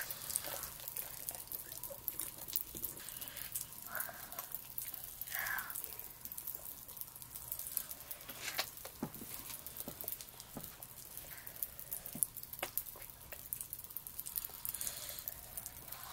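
Pop Rocks popping candy crackling, a scatter of tiny irregular pops and clicks, with a couple of short mouth sounds from eating jello about four and five and a half seconds in.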